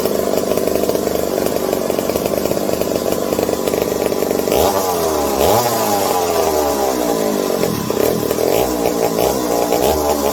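Vintage McCulloch 740 two-stroke chainsaw engine running, steady at first, then revved up and let back down several times from about halfway through. It is running well with its carburetor mixture screws turned in.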